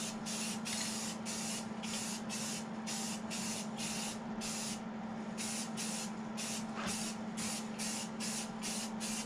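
Aerosol spray-paint can spraying in short hissing bursts, about two a second, with a brief pause about five seconds in.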